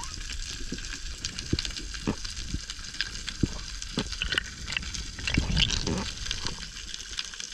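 Underwater crackling of a coral reef heard through the camera: a dense, steady patter of sharp clicks and pops, typical of snapping shrimp. About five and a half seconds in comes a louder rush of water noise.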